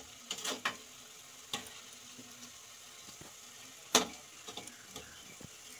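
Taro-leaf pakoras sizzling as they deep-fry in mustard oil, with a steady faint hiss. A metal spatula clicks and knocks against the pot as the fritters are stirred and turned, the loudest knock about four seconds in.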